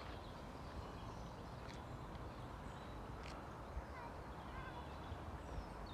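Wind rumbling on the microphone outdoors, with faint bird chirps in the second half and a couple of light clicks.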